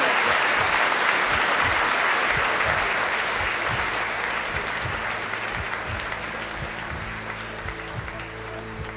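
Audience applauding, the clapping gradually fading away, while music with sustained notes comes in over the second half.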